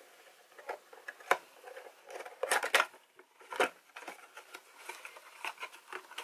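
Thin paperboard box being opened by hand, its flaps pulled free and folded back with crisp crackles and snaps. The sharpest snaps come about a second in, again around two and a half seconds, and once more past three and a half seconds, with lighter rustling between.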